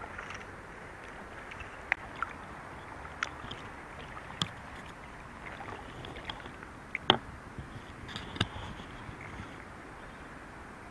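Steady rush of river water, with a handful of sharp knocks and splashes as a brown trout is landed and handled in a landing net; the loudest knock comes about seven seconds in.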